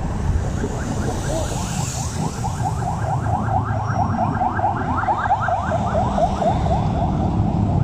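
An electronic alarm chirping in quick rising sweeps, about five a second, starting about a second in and fading near the end, over the steady low rumble of the vehicle's engine in slow traffic.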